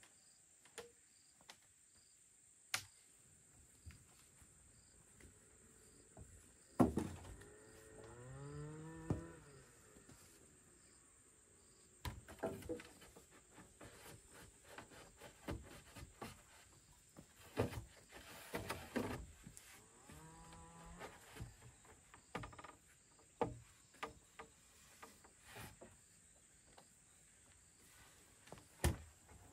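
Scattered knocks and taps, some single and a run of them midway, over a steady high insect drone. A cow lows once about seven seconds in.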